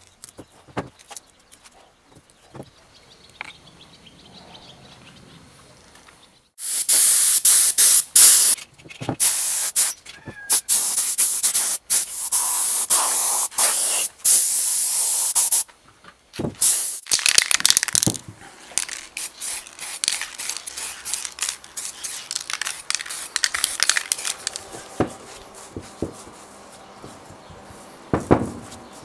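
Compressed-air paint spray gun spraying in repeated loud hissing bursts, starting about six seconds in, with short pauses between them. Before that there are only light handling clicks.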